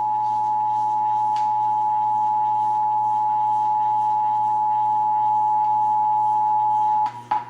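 Emergency Alert System attention signal: the steady two-tone 853 and 960 Hz alert tone, held unbroken and cut off about seven seconds in.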